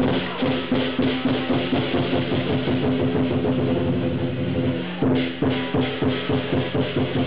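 Chinese lion dance percussion: a big drum beaten in a fast, steady rhythm with clashing cymbals and a ringing gong, breaking off briefly about five seconds in before carrying on.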